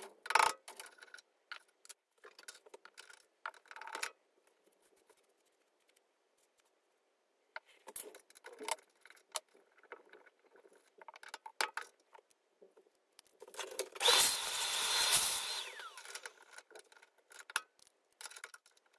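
Steel parts of a quick-change tool post clicking and clinking as the post is taken off a mini lathe's compound slide and handled. About three-quarters of the way through there is a loud hissing stretch lasting about a second and a half.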